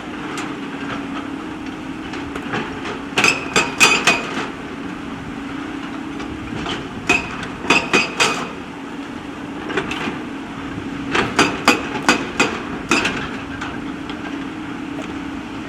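JCB backhoe loader's diesel engine running steadily, with several bursts of sharp metallic clanks and knocks as the steel bucket strikes and shifts stones.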